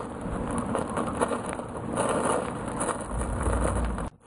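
Pine sap burning in a tea light holder in the rain, sizzling and crackling steadily as raindrops hit the melted sap, with rain patter around it. A low rumble comes in near the end, and the sound cuts out briefly just before the end.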